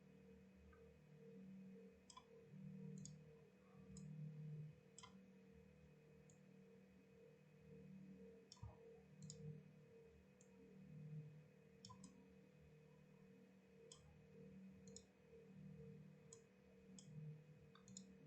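Faint, scattered clicks of a computer mouse and keyboard, about a dozen at uneven intervals, over a steady low electrical hum.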